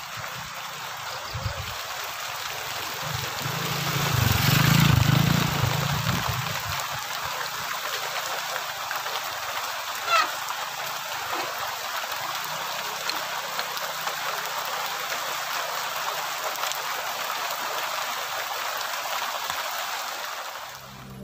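Steady hiss of rain falling, recorded while riding a bicycle along a wet, muddy path. A louder low rumble swells about four to six seconds in, and a brief high squeak comes about ten seconds in.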